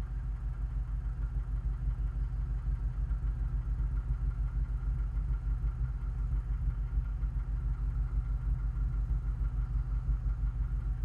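2009 Honda Element's 2.4-litre four-cylinder engine idling warm, a steady exhaust note with a fast, even pulse. The owner finds it excessively loud and wonders whether it points to valves out of adjustment, a slack timing chain or worn tensioners.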